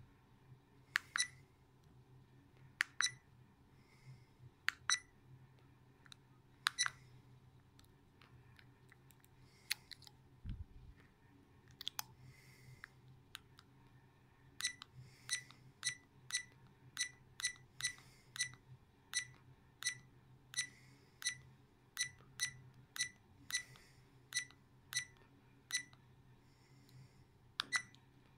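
Buttons on a FITFORT 4K action camera being pressed, each press a short clicking beep. A few presses come spaced apart, then a steady run of about two a second while stepping through its settings menu.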